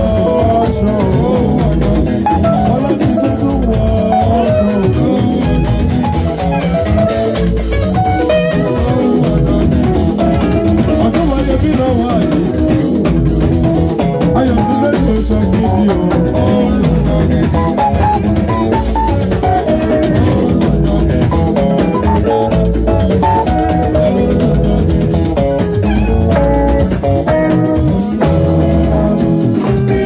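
Band music playing without pause: a drum kit keeps a steady beat under melodic instrument lines.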